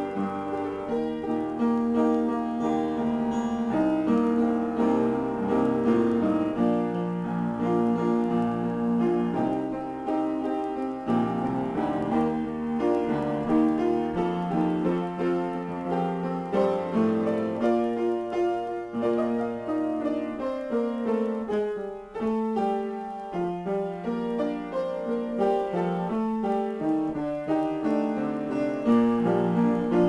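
Solo piano improvisation: chords and melody lines played continuously, with notes left to ring into one another, easing off briefly about two-thirds of the way through.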